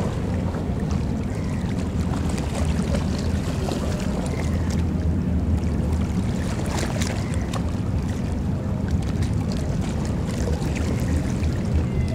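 Steady low rumble of a high-speed passenger ferry's engines under way, with the wash of water around the hull.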